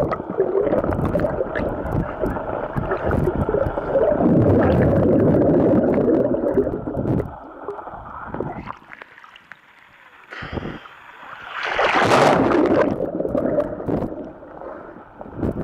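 Muffled underwater sound from a camera held below the surface of a swimming pool: water rushing and gurgling, dropping away for a couple of seconds past the middle, then a louder surge of water noise about twelve seconds in.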